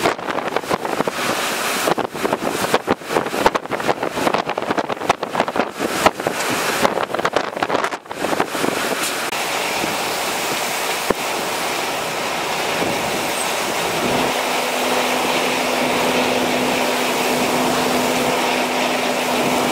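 Hurricane-force wind and driving rain. For the first several seconds, gusts buffet the microphone in ragged, irregular thumps. The wind then settles into a steady, even rush of wind and rain. A steady low hum joins about two-thirds of the way in.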